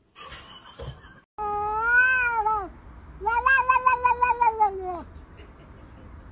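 Domestic cat giving two long, drawn-out meows. The first rises and then falls. The second wavers and slides down at the end.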